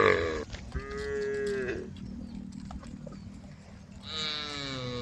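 Cattle mooing: a loud moo trailing off right at the start, another about a second in, and a third beginning near the end, each sliding down in pitch as it ends.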